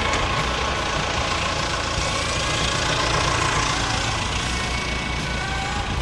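Heavy engine running steadily with a low, even throb, as a boat is hauled out onto its trailer.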